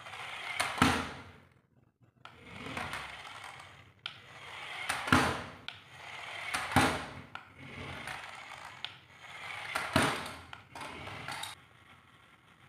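Toy RC airplane's small electric drive motor and plastic wheels whirring and scraping on a tiled floor in about seven short runs of one to two seconds each, with pauses between, as it is driven repeatedly at a cardboard ramp.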